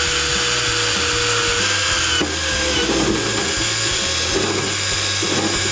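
Cordless power drill running steadily, its bit boring a hole through the plastic body shell of a 1/10 scale RC crawler. The motor whine dips briefly about two seconds in.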